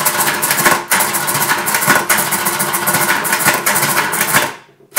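Brunsviga 11E electromechanical calculator running an automatic division: its electric motor drives the gearing in a loud, fast clatter. The clatter pauses briefly about a second in, stops shortly before the end, then starts again right at the end.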